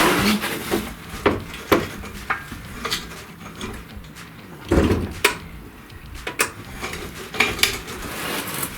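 Metal clinks and knocks as an unbolted car subframe resting on a jack is lowered, with one heavier thump about five seconds in.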